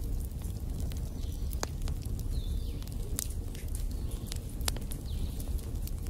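Wood fire burning in a fireplace: a steady low rumble of flame with irregular sharp crackles and several louder pops from the burning logs.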